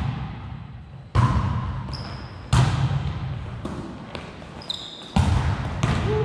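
A volleyball being hit during a rally: three sharp hits with a fainter one between, each echoing in a large gym, with sneakers squeaking on the hardwood floor.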